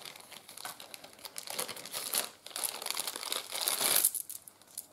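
Plastic bead bags crinkling and rustling in the hands, irregular crackles that die down about four seconds in.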